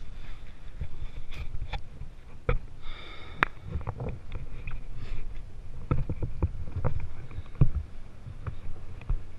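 Knocks, bumps and clatter as someone moves through a small sailboat's cabin and climbs out to the cockpit, over a steady low rumble, with a brief squeak about three seconds in.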